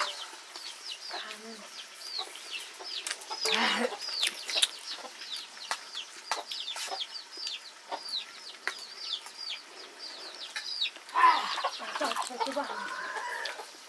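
Chicks peeping over and over, each a short, high, falling chirp, with scattered sharp clicks of a spoon against a dish. A louder, drawn-out call comes near the end.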